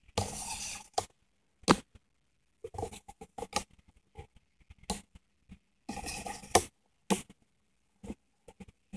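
Handling noise on a phone's microphone while it is carried: short bursts of rubbing and scraping with several sharp knocks between them, broken by silent gaps.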